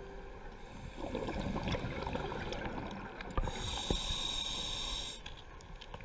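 A scuba diver breathing through a regulator underwater: a bubbling exhale gurgles for about two seconds, then an inhale hiss with a thin steady whistle follows. Two sharp knocks sound in the middle.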